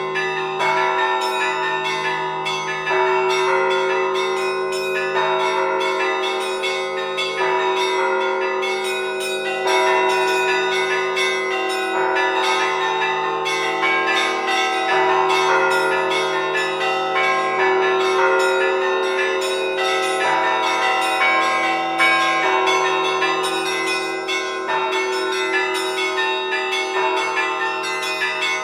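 Church bells ringing together in a continuous peal, with rapid, overlapping strokes.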